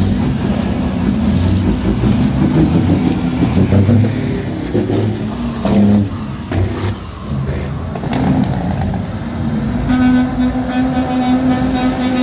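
Diesel engines of heavy semi-trucks running and rumbling as they move past at parade pace. A long steady tone joins near the end.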